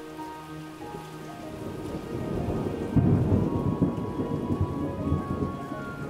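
Thunderstorm: steady rain with a roll of thunder that builds from about a second in, breaks loudest about three seconds in, then keeps rumbling.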